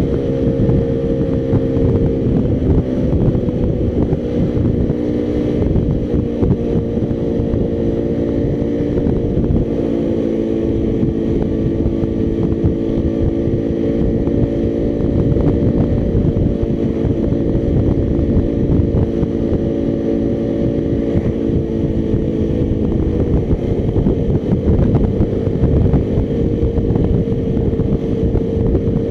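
Motorcycle engine running at a steady cruising pace, heard from the rider's own bike, with wind rumbling on the microphone. The engine note shifts slightly about three-quarters of the way through.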